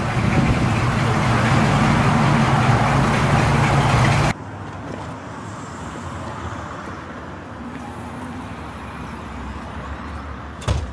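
A late-1950s Chevrolet pickup's engine running as the truck drives off. About four seconds in the sound cuts abruptly to a quieter, steady engine sound from a black hot-rod pickup with an exposed engine moving off slowly.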